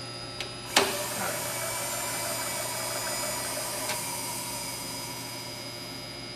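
A sharp click about a second in, then the Bridgeport Series 1 milling machine's servo knee feed motor running steadily as it power-elevates the knee, over a low electrical hum.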